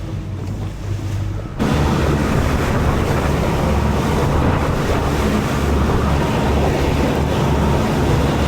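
Small boat under way at sea: a steady low engine hum under wind noise on the microphone and rushing water. The sound steps up abruptly to a louder level about one and a half seconds in.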